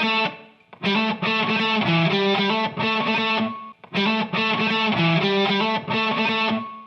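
Background music: distorted electric guitar playing chords in short repeated phrases with brief breaks between them.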